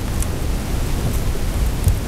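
Wind buffeting the microphone outdoors: an uneven low rumble.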